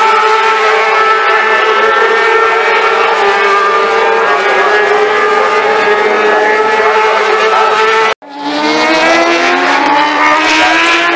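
Racing motorcycle engine running at high revs, holding a nearly steady pitch that sags slightly. After an abrupt cut about eight seconds in, an engine rises in pitch as it accelerates hard.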